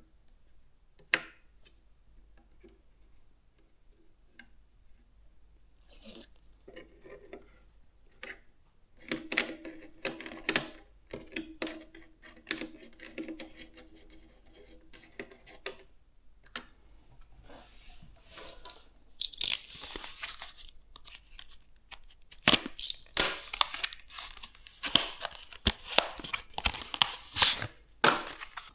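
Hands opening and handling PC-part packaging: tearing and rustling of packing material, with a run of small clicks and knocks that gets busier and louder in the last few seconds.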